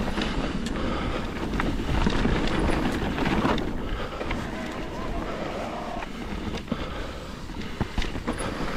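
Mountain bike descending a trail: steady tyre noise on the dirt with scattered knocks and rattles from the bike over bumps, and wind on the microphone.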